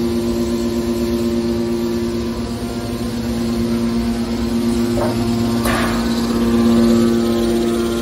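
Hydraulic baler's power unit running, its electric motors and hydraulic pump giving a steady hum with a constant whine. Two short knocks sound a little past the middle.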